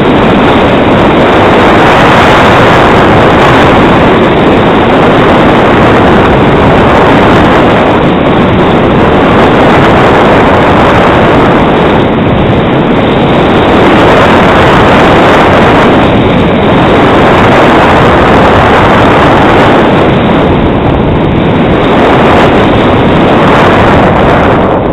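Loud wind rush on the camera microphone from skiing downhill, mixed with the hiss of skis sliding over packed snow, swelling and easing every few seconds.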